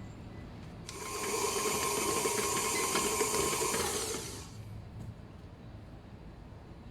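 Electric kitchen mixer motor switched on for a few seconds, a steady whirring hum that winds down after about four seconds.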